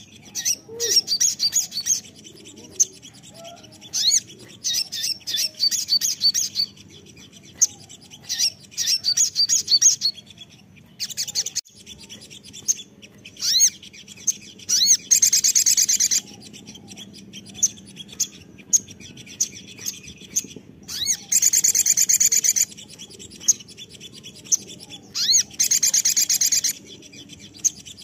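Olive-backed sunbird (sogon) singing: a run of high, sharp chirps and short twittering phrases, with three longer rapid trills of about a second or more, one midway and two in the last third.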